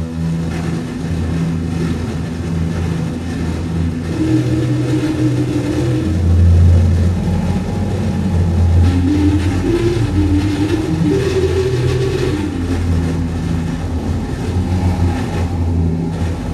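Live electronic drone music through effects pedals: a loud, low, steady hum with lower tones cutting in and out in stretches, and a higher tone that wavers up and down in pitch over the middle of the stretch.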